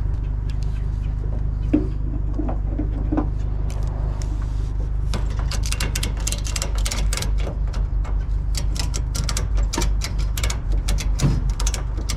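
Ratchet strap being worked to tie down a load: a few scattered clicks and rattles, then from about five seconds in a fast run of ratchet clicks as the strap is cranked tight, over a steady low rumble.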